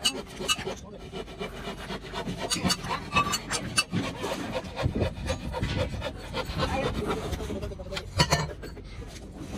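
Building-site work sounds: irregular knocks, taps and scraping of hand tools and timber on a concrete slab, with a sharper knock about eight seconds in.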